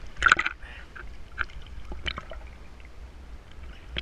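Sea water lapping and splashing against a camera held at the surface, with a louder splash just after the start, then small drips and ticks over a low steady rumble.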